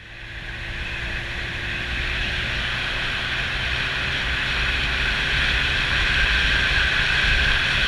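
A road vehicle on the move: steady rushing wind and road noise over a low engine rumble, fading in over the first second or two.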